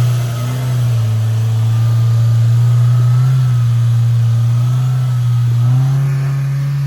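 Off-road side-by-side's engine running steadily at low revs, its pitch stepping up slightly about six seconds in.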